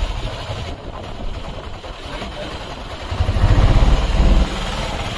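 An engine running with a low rumble, swelling louder for a little over a second about three seconds in.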